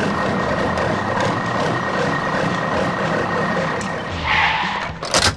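A moving-vehicle sound: a steady rushing engine-and-tyre noise with a faint high whine, then a brief brighter whoosh about four seconds in and a sharp click near the end.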